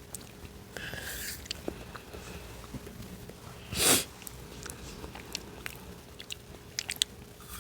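Close-miked eating sounds of a spoonful of taro ice cream: small mouth clicks and smacks, with a short, loud burst of breath about four seconds in.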